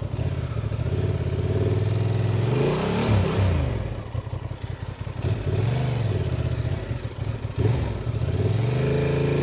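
Honda Transalp's twin-cylinder engine running off-road, revved up and back down about three times.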